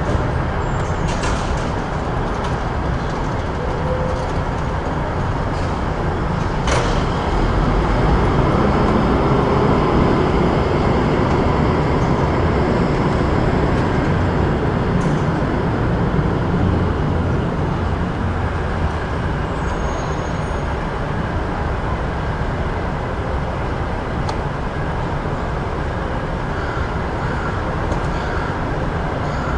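Busy city street traffic: a steady, loud rumble of road vehicles that swells a little from about seven to thirteen seconds in, with a sharp click about seven seconds in.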